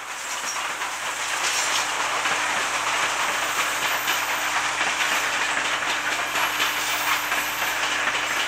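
Steam locomotive 18 201 drawing a train of coaches past: a steady hiss of steam escaping low at the cylinders together with the clatter of the wheels on the track, growing louder over the first couple of seconds as it comes closer.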